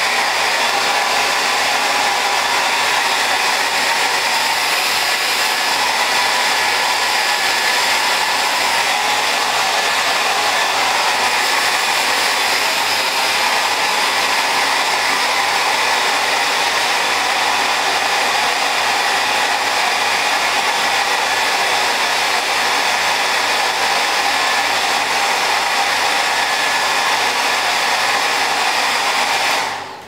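Handheld electric hair dryer blowing steadily, then switched off near the end.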